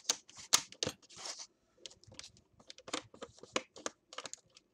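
Plastic screen bezel and panel of a Lenovo IdeaPad S145 laptop lid being handled and pressed into place by hand: a run of irregular small clicks, taps and scrapes with a little rustle.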